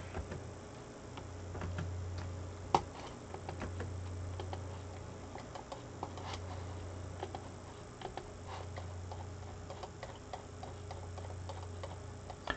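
Scattered light clicks and taps from a computer mouse and keyboard as PDF slides are navigated, one sharper click about three seconds in, over a steady low hum.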